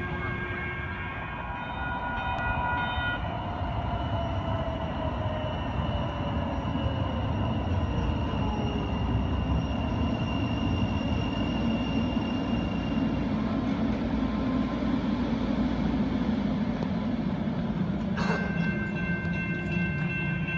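Light rail train running on the track with a steady low rumble, and a whine that falls slowly in pitch over several seconds. Near the end a sharp click is followed by a held multi-note tone.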